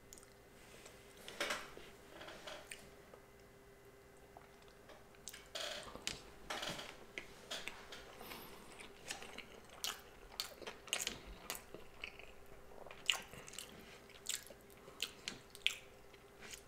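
Close-miked chewing of a sushi roll: irregular soft, wet mouth clicks and smacks, with a few louder bites about a second and a half in, around six to seven seconds in and near thirteen seconds.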